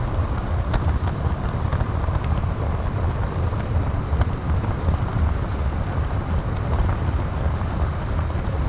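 Steady rumble of a model train running along its track, picked up by a camera riding on the train, with a few faint clicks.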